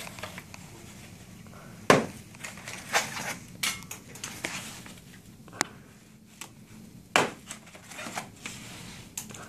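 Bubble wrap and foam packaging being pulled and crinkled by hand, with irregular rustling and several sharp snaps, the loudest about two seconds in and again about seven seconds in.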